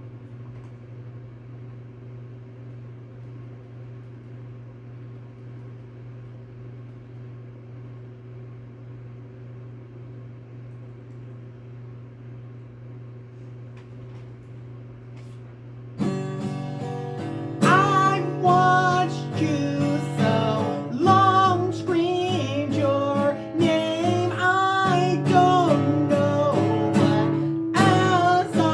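Acoustic guitar music: quiet, steady held chords, then about sixteen seconds in the music turns suddenly louder with a moving melody line over it.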